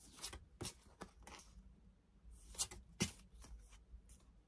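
Stiff card art prints being handled and slid against one another: a string of short, faint papery rustles and slides.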